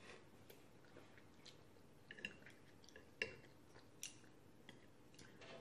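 Faint eating sounds, mostly near silence: a few soft mouth and utensil clicks, about three of them spread through the middle of the stretch, from someone chewing a spoonful of broccoli beef.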